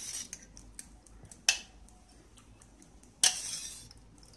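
Stainless steel ladle and bowls clinking as soaked urad dal is scooped and tipped from one steel bowl into another. There are three sharp clinks about a second and a half apart, the last trailing off into a short rustle, with faint ticks between.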